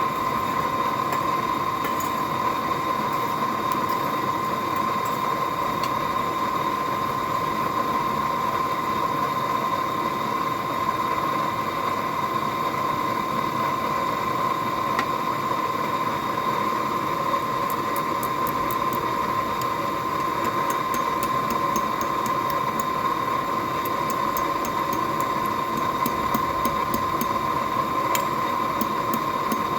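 Electric forge blower running steadily: a constant rushing hum with one clear steady tone. Faint light ticks come in over the second half.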